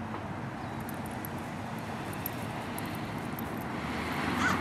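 Steady background noise of road traffic, with a bird call just before the end.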